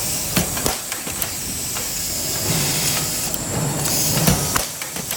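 Nut and stud welding machine running: a steady hiss with several sharp clicks and knocks, and a low hum that swells now and then.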